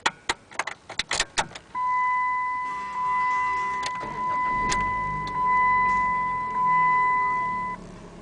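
Keys clicking and jingling at the ignition, then a car's seatbelt warning chime beeping about five times over some six seconds. Partway through, the engine cranks briefly, starts, and settles into a low idle under the chime.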